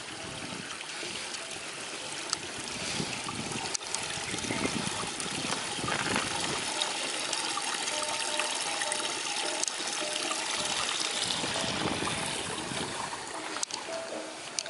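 Water trickling and splashing down a small irrigation channel beside a rice paddy, louder in the middle of the stretch.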